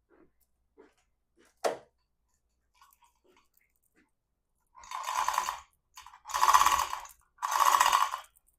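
Motorcycle lift being lowered: a sharp click of the release, then three hissing bursts of about a second each as it lets down in steps.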